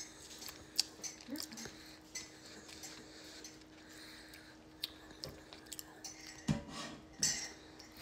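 Quiet mouth sounds of someone gnawing and sucking meat off a T-bone steak bone, with scattered small clicks and clinks and one louder knock about six and a half seconds in.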